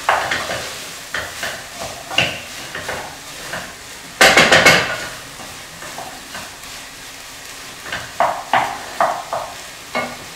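Lamb, onions and tomato paste frying in a pot and being stirred: a spoon scraping and knocking against the pot over a low sizzle, with one louder, harsher burst about four seconds in.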